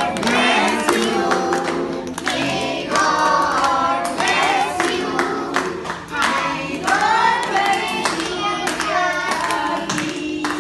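A group of voices singing a birthday song together over music, with hand claps.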